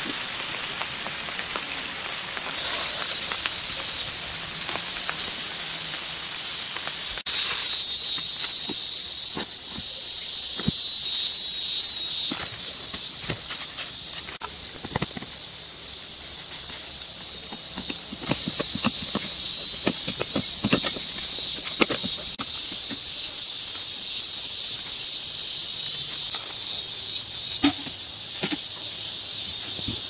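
A steady high-pitched hiss that shifts abruptly in tone several times, with scattered light knocks and taps through it.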